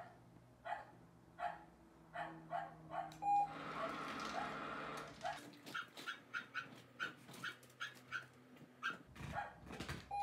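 Small dog barking repeatedly and excitedly at the television, short sharp barks about two a second that come faster in the second half. A short electronic beep sounds about three seconds in, with TV sound running underneath from then on.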